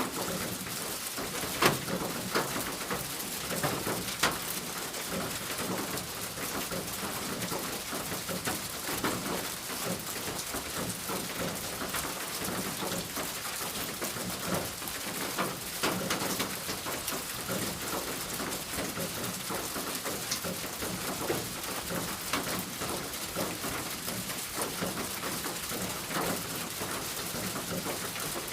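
Steady rain falling on a roof, a dense hiss with many scattered drop taps and a few louder individual hits.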